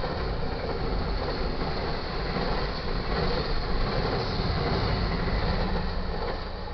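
Double-stack container freight train rolling past: a steady rumble and clatter of wheels on rail that begins to fade near the end.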